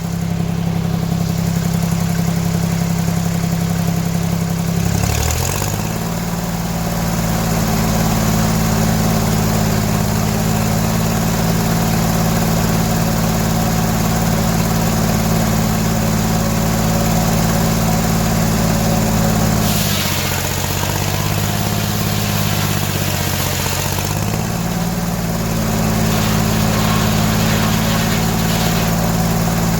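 The engine driving a circular sawmill runs steadily. Its speed drops briefly about five seconds in, and again for several seconds around twenty seconds in, before recovering.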